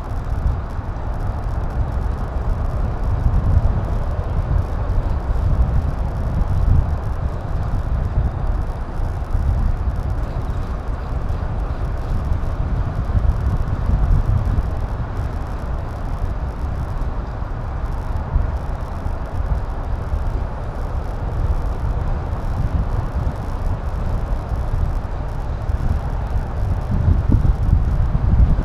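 Steady rumbling wind and road noise picked up by a mounted action camera's microphone while riding, with no engine tone and no gaps.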